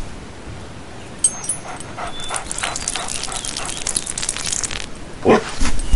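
A dog's brief vocal sound, a short whine or yelp, about five seconds in. Before it there are a few seconds of faint crackly hiss.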